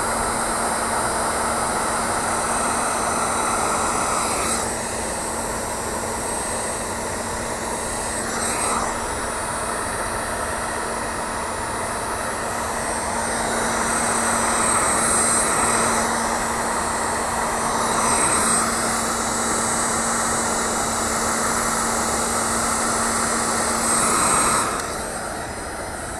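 Electric heat gun running, its fan blowing with a steady hum while it shrinks adhesive-lined heat-shrink tubing over crimped wire splices; the level swells and eases a little as it moves, and it cuts off near the end.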